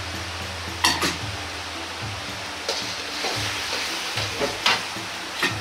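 Metal ladle stirring water and brown sugar as they heat in a wok, clinking sharply against the pan a few times over a steady sizzling hiss.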